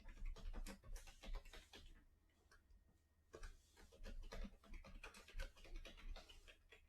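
Faint, irregular clicking and tapping of a computer keyboard and mouse, with a short pause about two seconds in.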